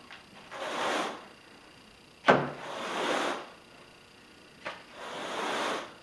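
A Grandi Groom carpet rake being dragged through carpet pile in repeated strokes: three swishing strokes about a second long, one roughly every two seconds. A sharp knock comes a little over two seconds in, and a lighter one near five seconds.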